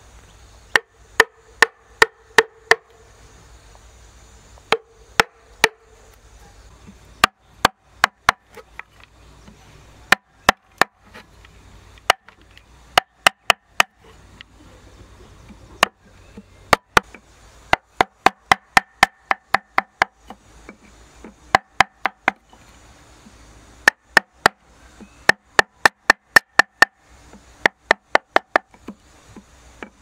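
Steel chisel struck again and again with a block of wood, cutting a small hole into the side of a hollow log for a bee hive. Sharp knocks come in quick runs of three to eight, with short pauses between the runs, and each run carries a brief ringing note.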